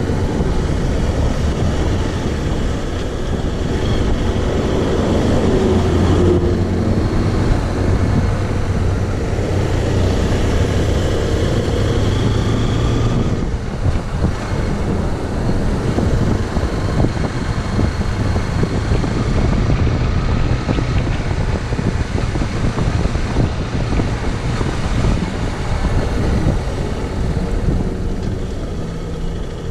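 Zontes X1 350's liquid-cooled single-cylinder engine under way on a ride, its note rising and falling with the throttle, with wind buffeting the microphone. The engine pitch climbs over the first several seconds and dips briefly about thirteen seconds in.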